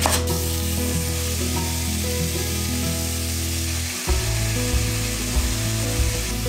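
One knife chop through a leek on a wooden board at the start, then a steady sizzle of chopped leeks and carrots frying in oil in a stainless steel pot, over background music.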